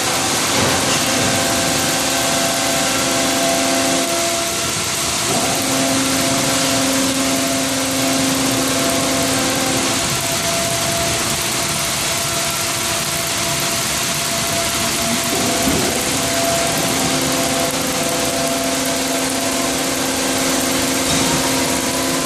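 Wravor 1200 P-NB horizontal band saw mill cutting line running, with a steady machine noise. Over it, a hum of motors stops and restarts several times as the saw and conveyors work.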